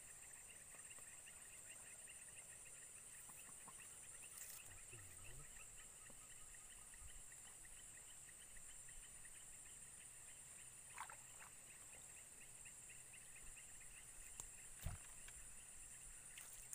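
Faint swamp ambience: a steady chorus of small calling animals, a high continuous hum over a lower fast-pulsing trill, with a few faint clicks and short calls.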